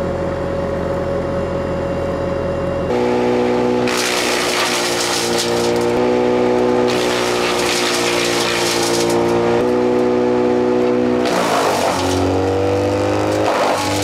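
Bobcat T750 skid steer's diesel engine running hard to drive an Erskine 8-inch hydraulic brush chipper, giving a steady droning whine with a hiss of chipping over it, changing abruptly a few times. Near the end the pitch sags and climbs back as the chipping disc slows under a load and recovers.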